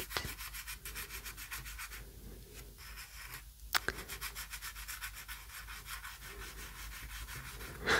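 Soft pastel rubbed on paper in quick, even back-and-forth strokes, several a second, a soft dry scratching, with one sharper click about three and a half seconds in.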